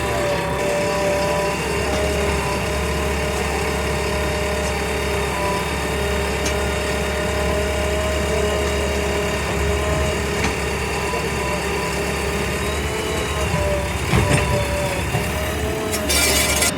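Diesel engine of a JCB 3DX backhoe loader running at a steady speed, with a brief hissing burst just before the end.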